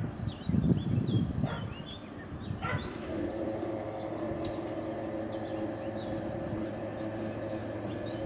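A dog barks a few times near the start while small birds chirp. About three seconds in, a steady mechanical hum with several even tones sets in from the standing OSE class 220 locomotive and holds.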